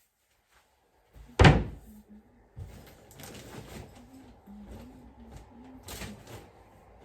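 A single loud thump about a second and a half in, then quieter scattered knocks and clicks.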